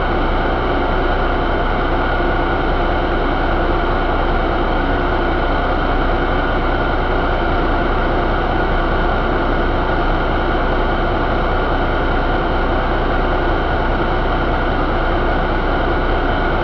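2016 Cummins ISX15 inline-six diesel engine running at a steady speed, with an even, unchanging engine note and no revving.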